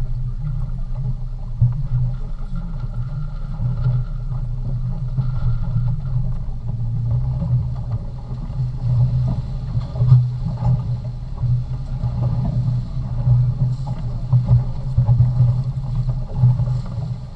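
A boat's engine running with a steady low rumble that rises and falls in strength.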